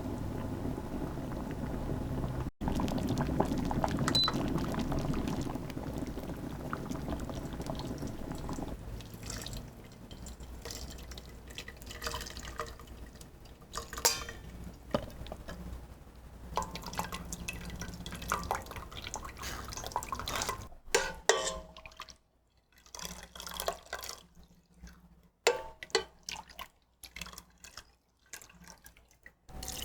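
Liquid pouring and splashing in a pot for several seconds, followed by scattered knocks and clinks of kitchen handling.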